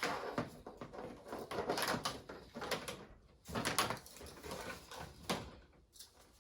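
Irregular rustles, scrapes and clicks of hands handling an oil extractor pump's battery clamps and leads, with a few louder scrapes spaced a second or two apart.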